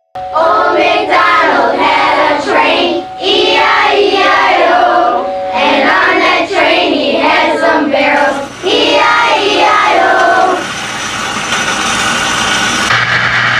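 Singing voices with music for about ten seconds. Then the singing stops, leaving a steady hiss that is joined by a low hum near the end.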